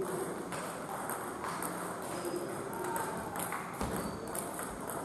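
Table tennis balls ticking at irregular intervals on tables and paddles from nearby tables in play, as a scattering of short clicks.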